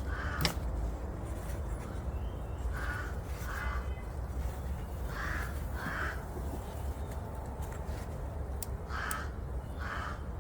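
A bird cawing in three pairs of short, evenly spaced calls over a steady low rumble, with one sharp click about half a second in.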